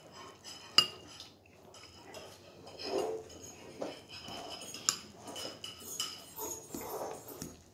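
Metal utensil clinking and scraping against a ceramic bowl while scooping up food. A sharp clink about a second in is the loudest, with a few more scattered through.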